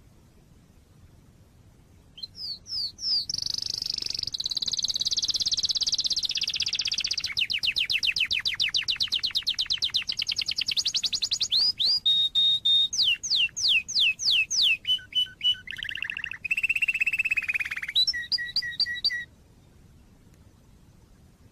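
Domestic canary singing one long, varied song: fast trills, a run of quick falling whistles and short held notes. It starts about two seconds in and stops abruptly a couple of seconds before the end.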